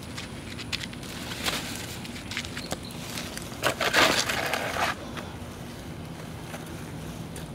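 Burnt, charred clothing being scraped up off the pavement by hand and dropped into a black plastic garbage bag: scattered crunches and clicks, with a louder spell of crunching and plastic-bag rustling about three and a half to five seconds in.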